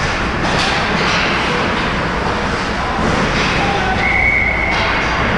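Ice hockey play around the net: skates scraping and stopping on the ice in short hissing bursts over a steady rink din. A brief high tone sounds about four seconds in.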